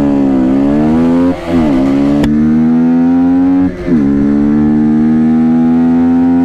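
Yamaha MT15's 155cc single-cylinder engine at full throttle, its pitch climbing steadily through the gears. Two quick upshifts cut the sound briefly, about a second and a half in and again near four seconds, over a rush of wind.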